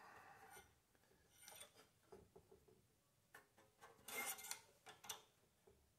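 Faint handling noises: light rubbing and small clicks as a rubber oil-filter line with brass fittings is worked into place on the engine, with a brief louder rub about four seconds in.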